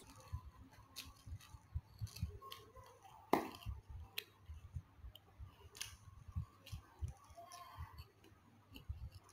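Eating instant noodles: a metal fork and spoon clicking and scraping against a plastic tray, with chewing and slurping of the noodles. A string of small clicks, one sharper about three seconds in.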